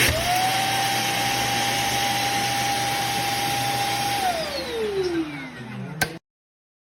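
Shark Clean & Empty vacuum motor switched on, whining up quickly and then running with a steady whine and rush of air. About four seconds in it is switched off and winds down with a falling whine, with a sharp click just before the sound cuts off abruptly.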